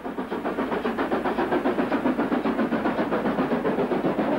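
Stanier Class 5 4-6-0 steam locomotive hauling a passenger train up a steep gradient and passing close by, with rapid, regular chuffing and a hiss of steam.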